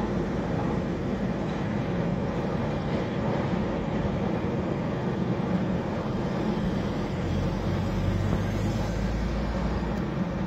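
Container freight train rolling across a railway viaduct: a steady, low rumble of the wagons passing. A deeper hum swells about seven seconds in and eases near the end.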